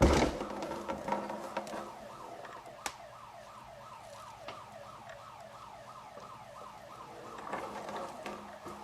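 Electronic building alarm siren sounding a fast, repeating falling wail, several sweeps a second. A loud thump comes right at the start, with a few sharp clicks in the first seconds.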